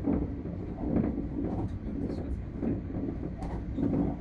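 Tobu 60000 series electric train running, heard from inside the front car: a steady rumble of wheels on rails with a low hum and repeated knocks about once a second as the wheels pass over rail joints.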